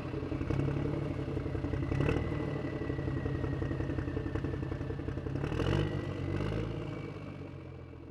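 Motor vehicle engine running and pulling away, swelling briefly twice, then fading out near the end as it drives off.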